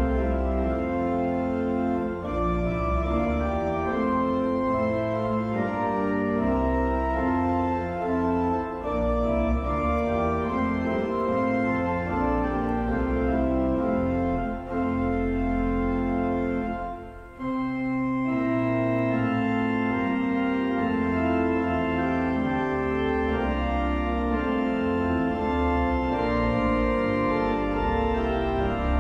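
Organ music playing slow, sustained chords, with a brief lull partway through.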